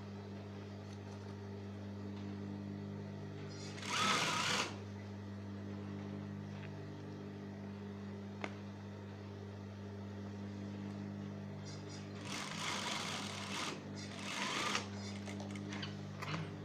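Electric sewing machine motor humming steadily, with a few short, louder bursts of sewing along a trouser seam.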